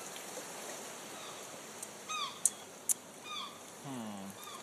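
Sound-effect background ambience: a steady hiss with two short falling cries, a couple of sharp clicks between them, and a low falling tone near the end.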